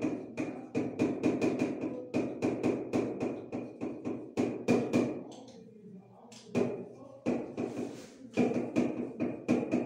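Writing on a board: a quick run of sharp taps and knocks, several a second. They pause about halfway, and a short scraping stroke follows.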